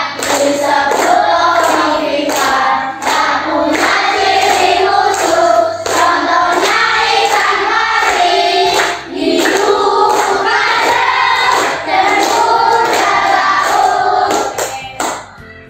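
A class of schoolchildren singing a song together, clapping their hands in time. The singing stops shortly before the end.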